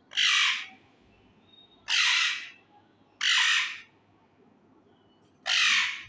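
Male ring-necked parakeet squawking: four loud, harsh calls, each less than a second long, with quiet gaps between them.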